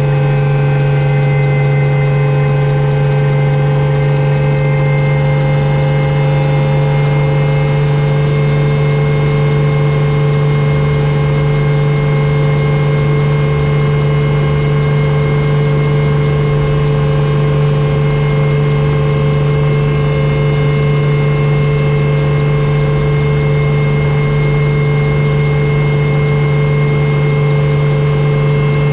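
Helicopter running with its rotor turning, heard from inside the cabin: a loud, steady drone with a strong low hum and several steady whines above it.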